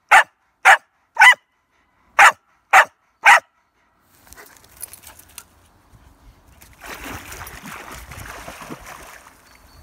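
A cattle dog barks six times, loud and short, in two quick sets of three. After a few quieter seconds comes about two seconds of water splashing as a dog swims at the bank.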